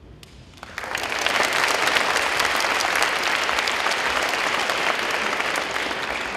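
Audience of children and adults applauding, starting about a second in and beginning to fade near the end.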